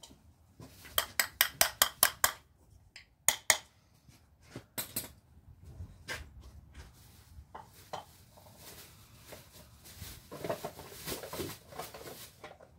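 Metal tools and parts clinking: a quick run of about eight clicks, a few single clinks, then a stretch of rustling handling near the end.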